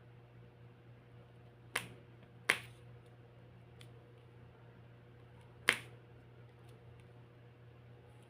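Diamond painting popping sounds: sharp single pops a second to a few seconds apart, the loudest about two seconds in and again near the end, with a few much fainter ticks between.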